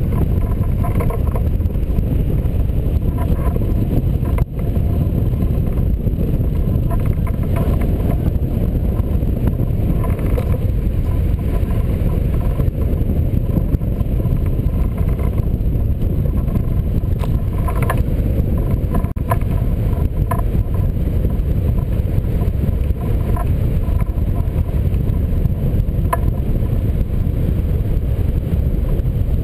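Loud, steady rush of airflow buffeting the microphone of a camera mounted on a hang glider in flight.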